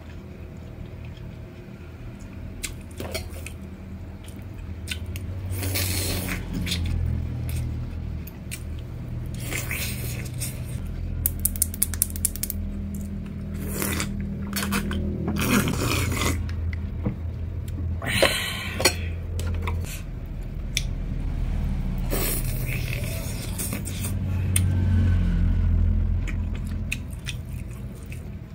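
Close-miked eating sounds: chewing soft stewed chicken and noodles, with clicks and scrapes of chopsticks and dishes, including a quick run of clicks about twelve seconds in. Partway through come the gulps of drinking milk from a glass mug.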